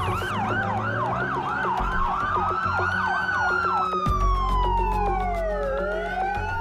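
Several sirens sounding at once: a fast yelp cycling about three times a second for the first three and a half seconds, over slow rising-and-falling wails that continue throughout. A low rumble joins about four seconds in.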